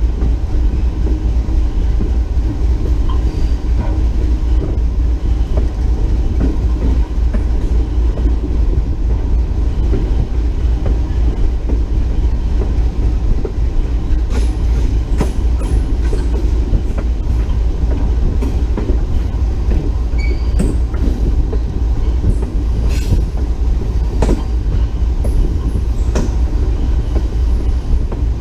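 Locomotive rolling along the track with a loud, steady low rumble. From about halfway on, sharp irregular clicks and knocks come from the wheels passing over rail joints.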